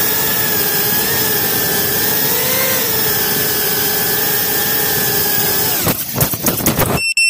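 GEPRC Cine Pro 4K FPV quadcopter's motors and propellers whining steadily as it hovers, heard from its own onboard camera. About six seconds in, the whine breaks into uneven stutters as it sets down on the ground and the motors throttle off; a few clicks follow, and the sound cuts off suddenly.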